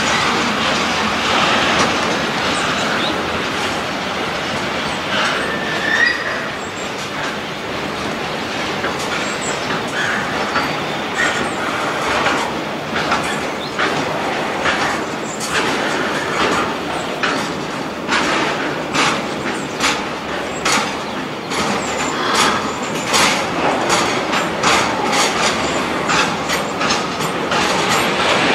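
Freight train of tank wagons rolling past, a steady rolling rumble with the wheels clacking over rail joints; the clacks come thicker in the second half. A short high wheel squeal about six seconds in.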